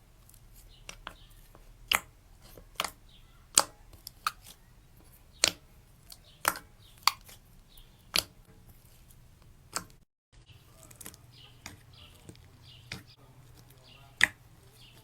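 Slime being pressed and poked by hand, giving sharp, irregular clicks and pops, about one every half second to a second.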